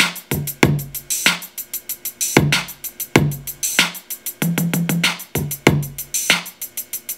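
Programmed hip-hop drum loop playing back from a Native Instruments Maschine: rapid hi-hats over kick and a snare layered with a clap, with low tom hits tried in as a tom roll.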